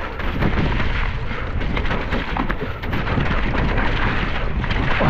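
Mountain bike riding fast down a wet, muddy trail: a deep, steady rumble of wind buffeting the microphone, with the bike's rattle and the knocks of the tyres over ruts and roots.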